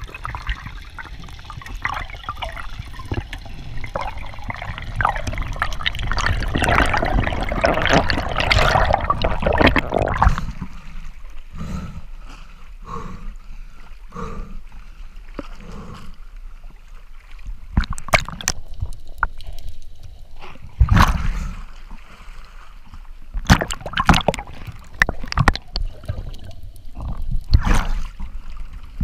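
Seawater gurgling, sloshing and splashing around a camera held just at and under the surface. A dense, continuous bubbling rush fills the first ten seconds. After that it turns to quieter sloshing, broken by several separate sharp splashes.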